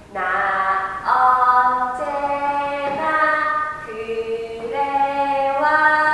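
A woman's singing voice holding long, sustained notes of a K-pop melody, each note changing pitch about once a second, with no drums or bass beneath it.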